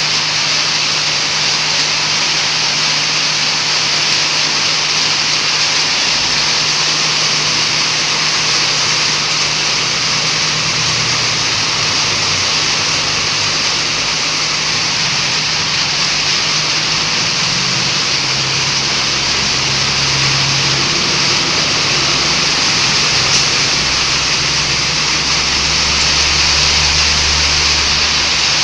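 Heavy rain falling in a steady, loud hiss, with a low motor-vehicle engine hum underneath that deepens and grows in the last few seconds.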